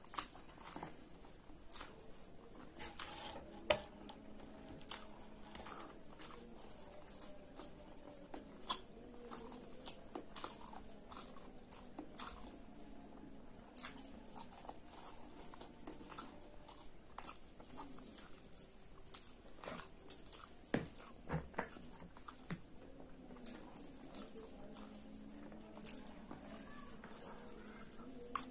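Close-miked chewing of a mouthful of soft instant fried noodles, with frequent short wet mouth clicks and smacks, a tight cluster of louder ones about two-thirds of the way through.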